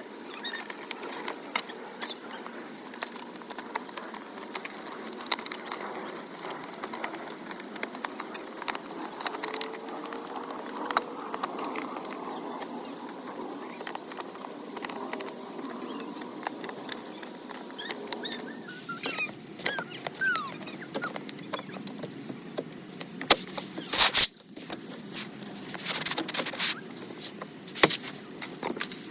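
Handling noises of hand work on a car door: many small clicks, rubs and scrapes, with several louder bursts of rustling or scraping in the last few seconds.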